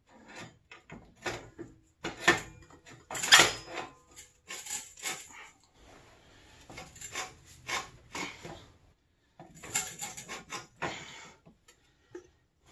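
Metal parts and tools clinking, knocking and scraping irregularly while a three-wheeler's rear axle is being worked back in. The loudest knocks come about two to three and a half seconds in, with another cluster near the ten-second mark.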